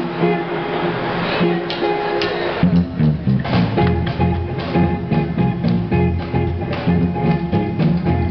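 Live rock band playing through amplifiers, with electric guitar, bass and drum kit; the bass and drums come in strongly about two and a half seconds in, setting a steady beat.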